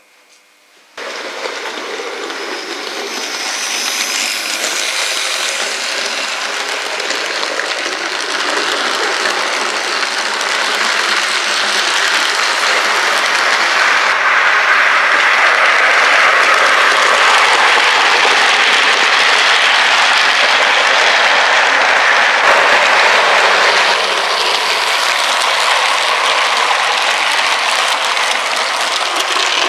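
OO gauge model trains running on the layout's track, a steady rattle of wheels and motors that starts abruptly about a second in and swells as a train passes close.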